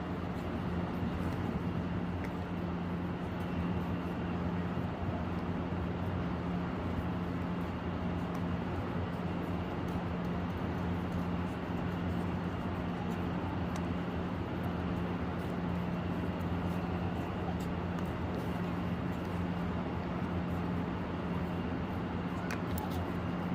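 A steady low hum over a constant noisy background, with no break or change.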